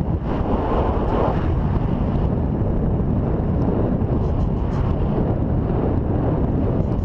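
Wind rushing over the microphone of a camera carried by a horseback rider, a steady low rumble.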